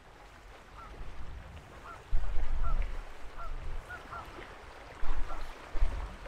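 A flock of waterfowl calling repeatedly: a dozen or so short calls, each rising and falling. Heavy low rumbles buffet the microphone about two seconds in and again near the end.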